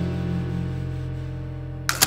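Background music: a held chord rings on and slowly fades, then a sudden burst of noise cuts in near the end.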